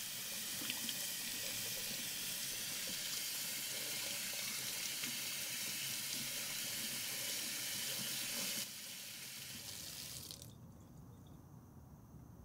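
Water running from a tap into a sink as hands are washed under it. The flow steps down about two-thirds of the way through and stops shortly before the end.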